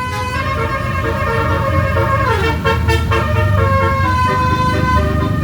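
Basuri multi-tone 'telolet' horn on an Indonesian tour bus playing a tune. It alternates held notes with short, quickly repeated toots and slides down in pitch about halfway through, over the bus's low engine rumble.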